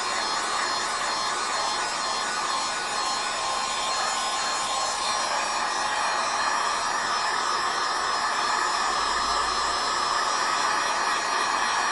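Heat gun running steadily, a continuous rush of blown air from its fan, aimed at freshly sprayed paint to dry it. It gets a little louder about halfway through.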